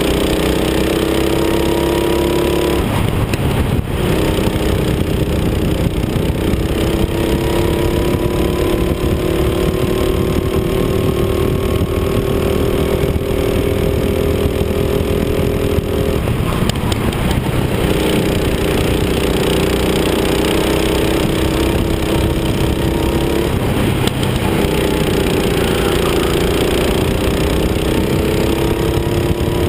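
Rental go-kart's small engine running hard at high revs. Its pitch climbs slowly as the kart accelerates and drops sharply three times as the revs fall: about three seconds in, a little past halfway, and about two-thirds of the way through.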